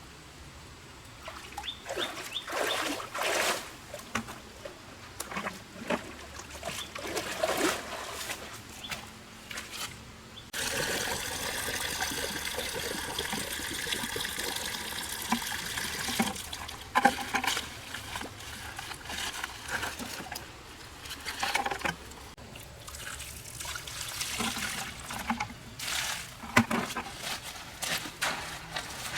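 Water splashing and trickling in uneven bursts, with a steady stretch of pouring water about ten seconds in that lasts around six seconds.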